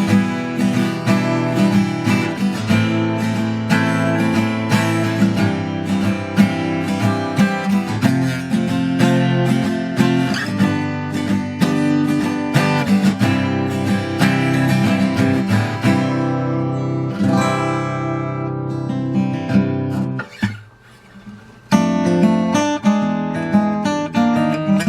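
Morris W20 steel-string acoustic guitar being played, with rapid plucked notes and chords. A chord rings out and fades about two-thirds of the way through, there is a brief pause, and the playing picks up again.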